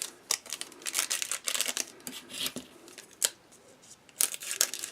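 Trading cards and their pack being handled: a quick string of short dry clicks, snaps and rustles.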